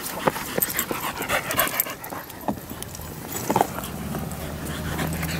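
A Border Collie panting, with scattered scuffs and clicks. From about halfway a low, steady hum builds up beneath it.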